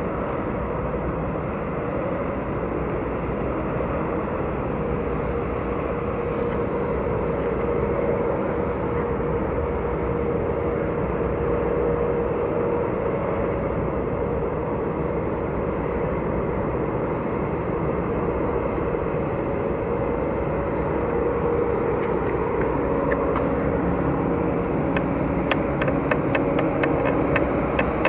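Steady low rumble of a large container ship's engine and propeller as it moves slowly past close by, with a faint steady hum over it. A run of faint rapid ticks comes in near the end.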